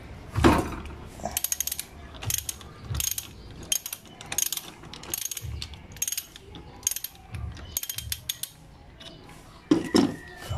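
Socket ratchet clicking in quick runs as it is swung back and forth, loosening a 14 mm brake caliper mounting bolt counterclockwise. There are a couple of louder knocks of the tool, about half a second in and near the end.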